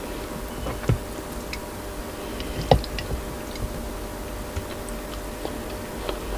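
Close-miked eating sounds: quiet chewing and a few scattered small clicks and taps, the sharpest about three seconds in, over a steady low hum.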